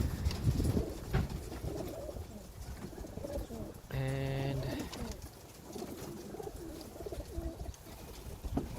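Young racing homer pigeons cooing, a low, wavering murmur. About four seconds in, a short steady droning tone sounds for under a second.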